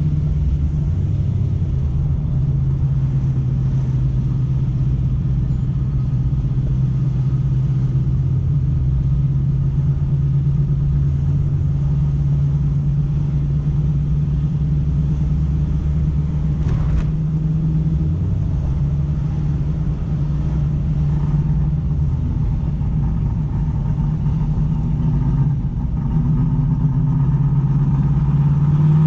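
Muscle car engine and exhaust running with a steady low rumble while cruising, rising in pitch near the end as it speeds up.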